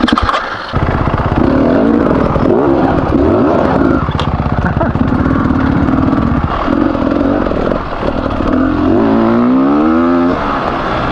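Beta 300RR two-stroke enduro motorcycle engine riding a trail, its revs rising and falling with the throttle, then climbing noticeably near the end before dropping back. The engine was recently rebuilt with a new piston and bearings after a dry bearing failure.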